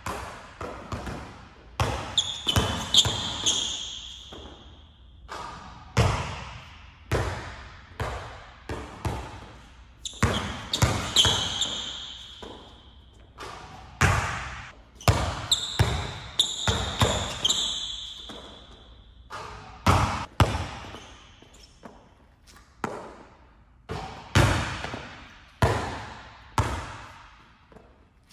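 Basketball thudding on a gym floor during solo shooting practice, with a sharp impact every second or two that rings out in the hall's echo. Several short high squeaks of basketball shoes on the court come in between.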